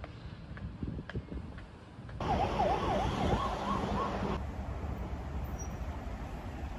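Street traffic noise with a siren yelping in quick rising-and-falling sweeps for about two seconds, starting and stopping abruptly.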